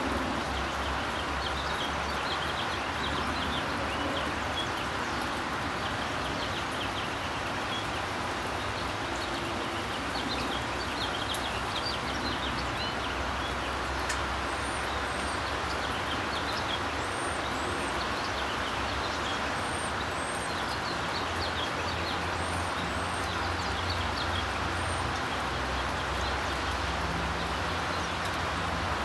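Outdoor ambience: a steady hiss over a low distant rumble, with small birds chirping throughout and a few thin, high calls from about halfway to near the end.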